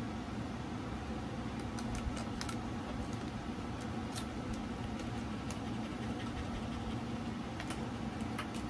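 Light clicks and taps as the parts of a cheap tripod are handled during assembly, over a steady low hum.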